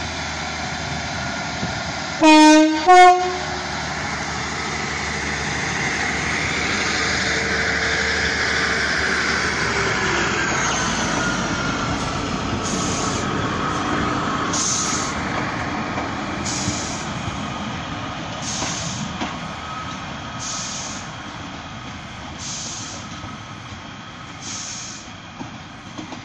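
A Great Western Railway diesel multiple unit sounds its two-tone horn, two short blasts, low note then high, about two seconds in. It then pulls away and passes with a steady diesel rumble and rushing wheel noise, loudest about ten seconds in and fading as it leaves.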